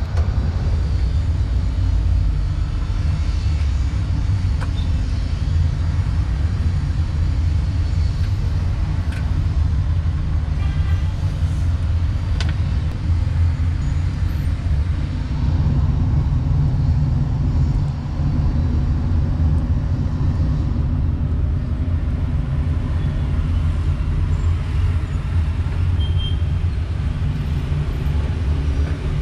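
Steady low rumble of road traffic, cars and motorbikes running past on a busy city street, with a few faint clicks.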